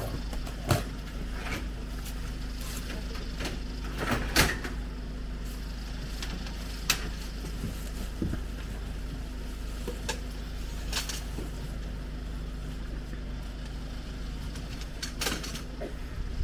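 Steady low background rumble with scattered sharp knocks and clatters, about seven in all, the loudest about four seconds in.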